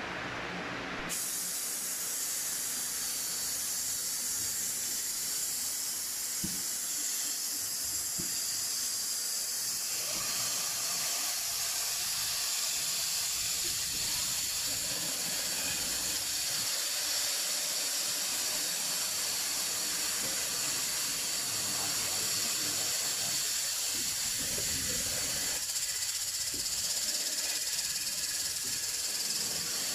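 Abrasive belt of a pot inside-sanding machine grinding the inside of a spinning die-cast aluminium pot: a steady high hiss that starts about a second in.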